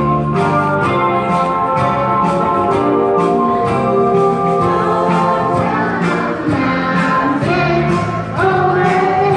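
Instrumental Christmas song accompaniment with a steady beat, with a group of young children starting to sing along about eight seconds in.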